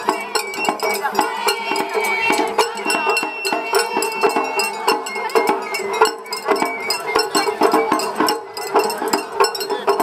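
Japanese festival hayashi music from a parade float: drums struck in quick, dense strokes under a high bamboo flute, which holds one long note near the middle, with crowd voices mixed in.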